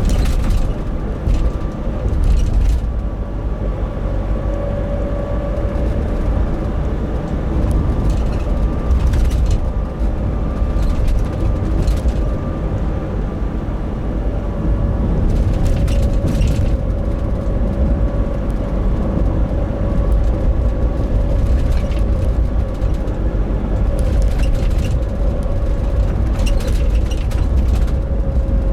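Nissan NV350 Caravan van under way, its YD25DDTi diesel and road noise giving a heavy low rumble, with a steady 'ko-on' hum whose pitch drifts slightly. This is the abnormal drone the owner hears at steady throttle around 1,000–1,500 rpm, and he suspects it may come from the differential. A few brief bursts of hiss sound over it.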